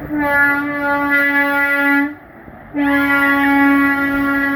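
Truck air horn blowing two long, steady single-pitched blasts. The first breaks off about two seconds in, and the second starts about half a second later and is still sounding at the end.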